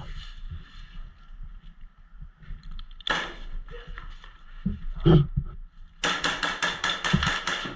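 Airsoft gun firing a rapid full-auto burst of evenly spaced shots lasting under two seconds near the end, after a couple of single sharp pops earlier on.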